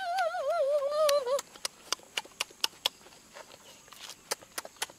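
A child's long, wavering vocal sound, sliding slowly downward, breaks off about a second and a half in. Then come close, sharp lip-smacking and chewing clicks, about three a second, as the child eats chicken.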